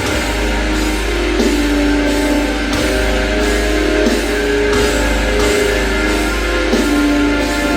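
Heavy metal song with guitar playing through a JBL Authentics 500 speaker at about half volume, loud and steady, with a strong bass.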